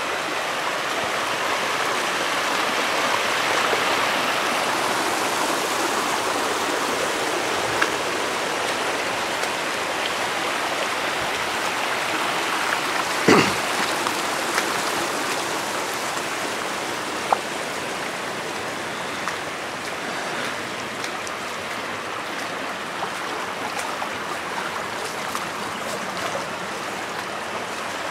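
Floodwater from a broken water main rushing in a shallow sheet over a lawn and driveway, a steady rush of running water. A single brief knock is heard about halfway through.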